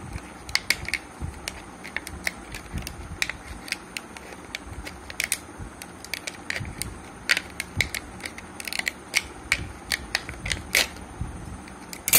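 Steel scissors snipping through a stiff clear plastic blister pack: a run of irregular sharp snips and cracks, several a second, with a louder snap near the end.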